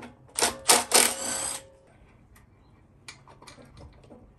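Milwaukee cordless impact driver run in three short bursts in the first second and a half, hammering as it undoes the fasteners at the air cleaner and carburettor of a Honda GCV160 mower engine, followed by a few light clicks of parts being handled.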